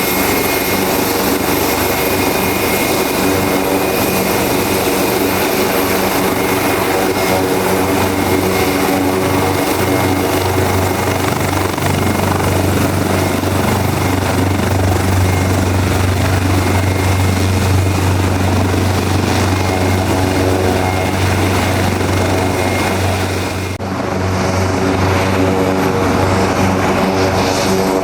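Leonardo AW189 twin-turbine helicopter running close by: a steady rotor beat under the whine of the turbine engines. About four-fifths of the way through the sound dips briefly and then comes back duller, with less hiss at the top.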